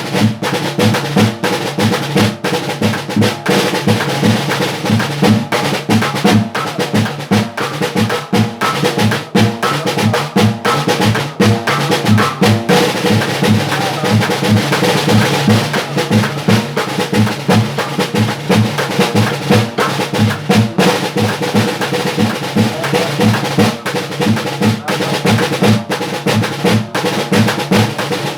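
Snare drum (redoblante) played continuously in a fast rhythm with rolls, over a steady low beat from a tarro, a can struck as a bass drum.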